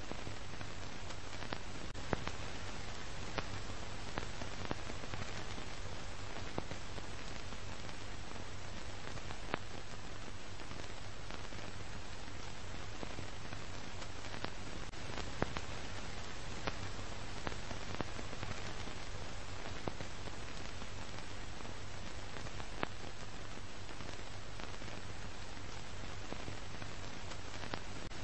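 Steady hiss with scattered faint clicks and crackles over a low hum: the noise of an old archival film soundtrack, with no battle sounds heard.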